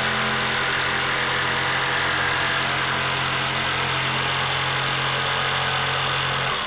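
Electric jigsaw running steadily as its blade cuts through a thick wooden board, stopping near the end.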